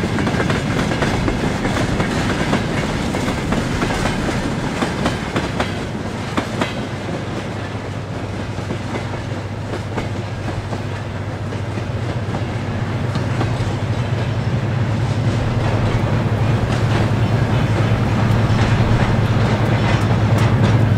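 Freight train of tank wagons rolling past, wheels clicking over the rail joints, the clatter thinning out as the last wagons draw away. In the second half a steady low drone grows louder.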